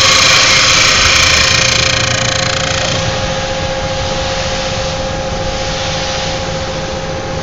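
CNC wood lathe turning a billiard-table leg: a loud hiss of the cutter shaving the spinning wood fades over the first two to three seconds, leaving the machine's steady whine.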